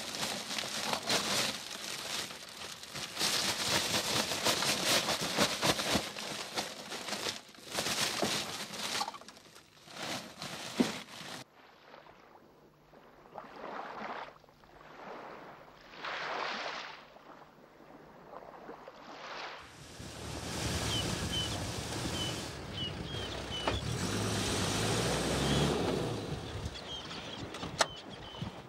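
Rustling and handling noise of a hessian sack with a mud crab in it, then slow surges of waves washing up a beach, then a four-wheel drive's engine revving as its wheels spin in a sand bog, with small birds chirping.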